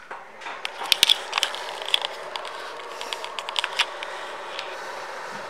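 A run of light clicks and taps from hands working around the motorcycle's cockpit, over a steady hiss that comes on just after the start, as the BMW R 18 Transcontinental's ignition is switched on before the engine is started.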